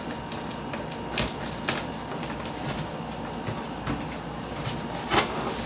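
Cardboard box being opened and its packed contents handled: scraping and rustling with a few sharp knocks, the loudest about five seconds in.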